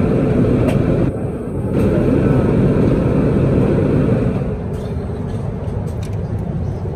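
Steady roar of a Boeing 787-9 cruising, heard inside the cabin: engine and airflow noise. About four and a half seconds in it drops to a quieter, duller cabin hum with a few faint clicks.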